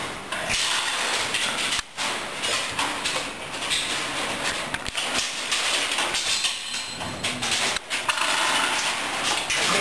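Knocking and clattering of metal parts as a steel wheelchair-lift frame and its door panel are worked loose and taken apart, over a dense noisy background.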